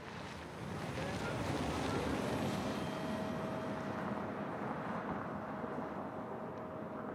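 Hyundai Tucson Fuel Cell SUV, an electric-drive vehicle with no combustion engine, pulling away over a dry lake bed: a steady rush of tyre and wind noise that builds over the first two seconds, with a faint steady whine joining about halfway through.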